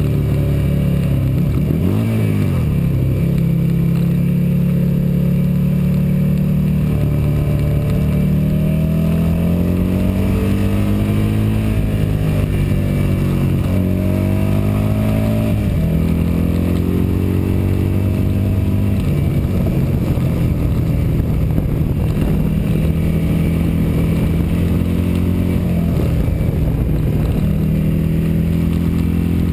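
Motorcycle engine running hard on track, heard from the bike itself: its note holds steady, climbs in long rises through the middle as the bike accelerates, and drops sharply about halfway through before settling again.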